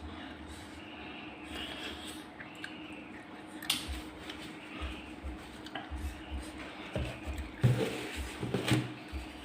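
Wet chewing and mouth sounds of a person eating spicy seafood papaya salad, with a sharp click about four seconds in and two louder bursts near the end.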